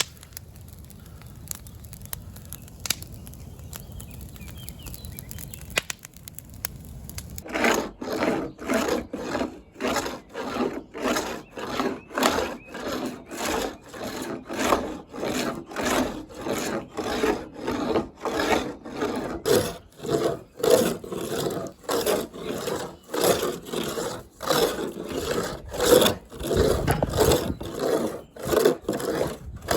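A hand saw cutting through wood in steady back-and-forth strokes, about two a second. The strokes start about seven seconds in, after a quieter stretch with a few clicks.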